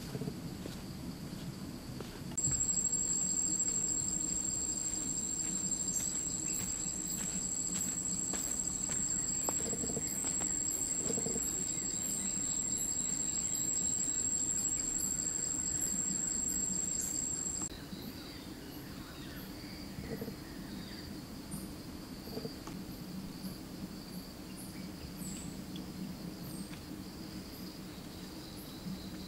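Outdoor insect chorus: a loud, steady, high-pitched trill that cuts in abruptly a couple of seconds in and cuts off abruptly near the middle, over a fainter steady insect hum, with scattered faint high clicks.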